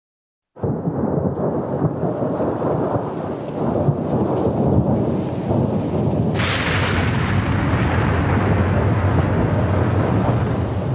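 Thunderstorm sound effect: a continuous low rumble of thunder with rain hiss that starts suddenly just after the beginning, growing brighter and harsher about six seconds in.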